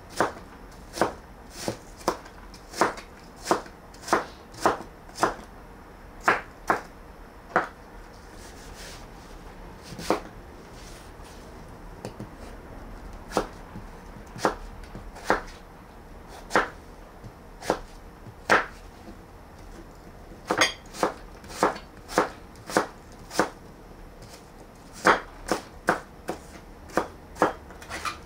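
Kitchen knife cutting a green apple into small cubes on a cutting board. Each cut ends in a sharp knock of the blade on the board, coming in runs of about two a second with a few short pauses.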